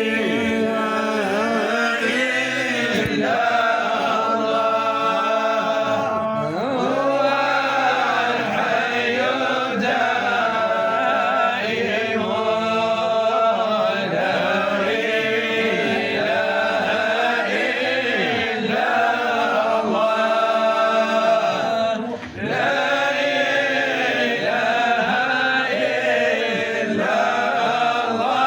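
A man's voice chanting an Arabic Sufi devotional poem (qasida) in long, gliding melodic phrases, with a short break about 22 seconds in.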